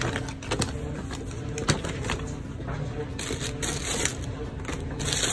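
Hands rummaging through a bin of pet supplies: small clicks and knocks of bottles, tubes and a cardboard box being moved, with plastic packaging crinkling from about three seconds in.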